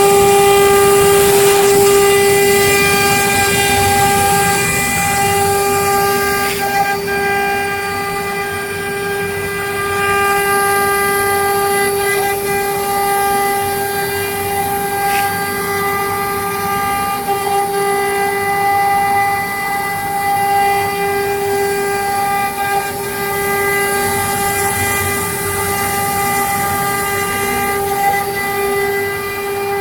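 Air-cooled spindles of a double-head wood CNC router running at speed: a steady high whine over a constant hiss.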